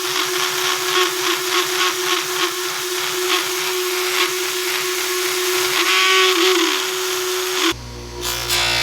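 Small high-speed rotary tool polishing or sanding a bronze vase, its motor running at a steady high pitch with a rasping hiss of abrasive on metal. The pitch sags briefly about six seconds in, and the sound cuts off abruptly near the end.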